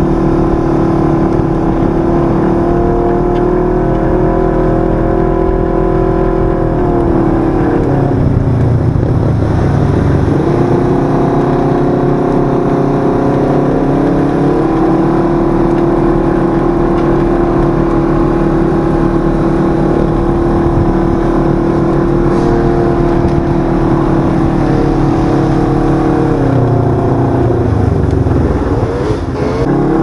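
Side-by-side UTV's 1000 cc parallel-twin engine running under way at a steady cruise, heard from on board. About a quarter of the way in, and again near the end, the engine note drops as the machine slows, then climbs back up.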